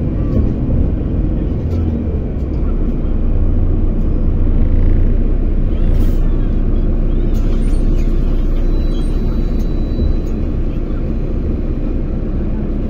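Steady low rumble of road and engine noise heard from inside a moving vehicle's cabin.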